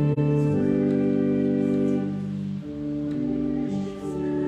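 Organ playing a hymn in held chords, the chords changing about two seconds in and again a little later.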